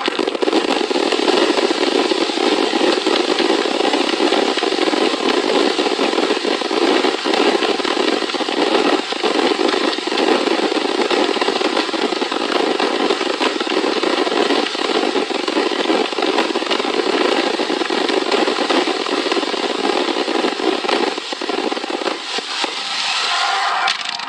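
Fireworks crackling densely and without a break, a continuous mass of tiny sharp pops like a crackling-star barrage, thinning out near the end.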